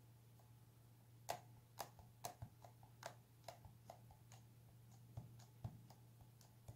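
Faint, irregular soft taps, about two a second, of a kneaded eraser being dabbed onto paper through a plastic stencil to lift pastel colour. A faint steady low hum runs underneath.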